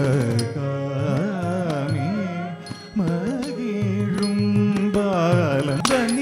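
Live Carnatic music accompanying a Bharatanatyam dance: a sliding, ornamented melody over a steady drone, with a short drop in level just before halfway. Sharp percussive strikes come in near the end.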